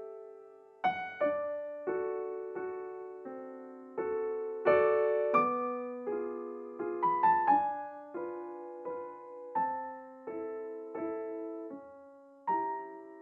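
Slow, gentle solo piano music: single notes and small chords struck one after another, each ringing and fading away.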